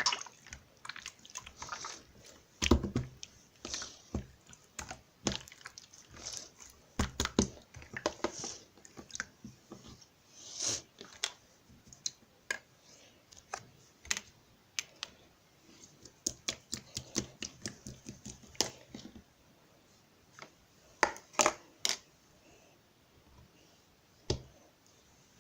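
Irregular small clicks and taps, some in quick clusters, with short quiet stretches near the end.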